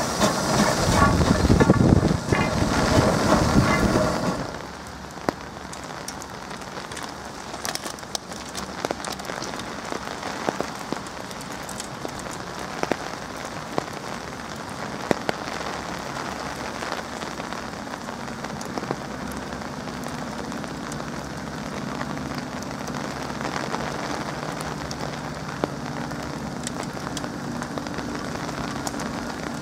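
For about the first four seconds, narrow-gauge steam tank locomotive No. 8 Fenella and its coach run past loudly at close range. Then steady rain patters on and around the microphone, with scattered sharper drop hits. In the last third, a low rumble of the locomotive working towards the camera grows under the rain.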